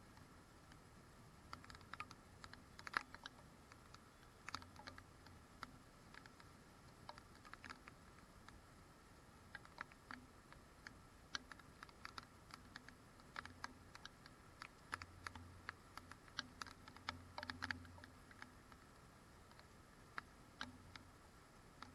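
Faint, irregular light taps and clicks, coming in uneven clusters of up to several a second over a low background hum.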